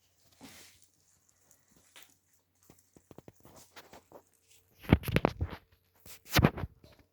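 Rabbit chewing lettuce: soft, irregular crunching clicks, with two louder bursts of rapid crunching about five and six and a half seconds in.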